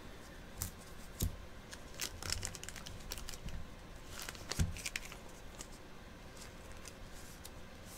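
Faint rustling and clicking as trading cards and a plastic sleeve are handled on a desk, with soft knocks about a second in and again about four and a half seconds in.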